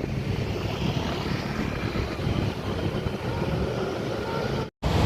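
Road traffic from a bus driving past: a steady engine rumble and tyre noise with wind on the microphone. The sound drops out for an instant near the end.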